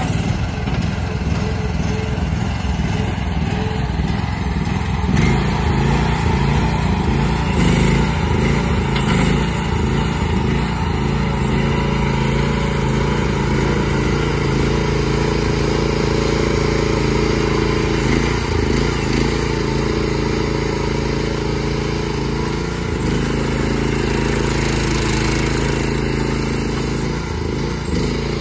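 AGT Industrial QH12 mini excavator's small engine running steadily while the machine works its boom and arm. The engine note shifts a few times as the hydraulics take load, about five seconds in and again near the end.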